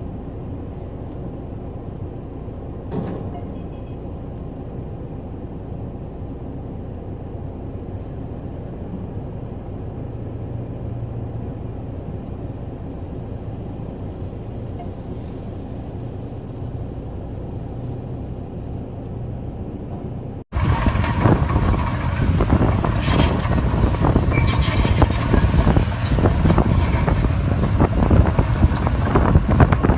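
Excavator diesel engine running steadily with an even hum. About twenty seconds in the sound cuts abruptly to a louder, harsher recording of heavy machinery working close by.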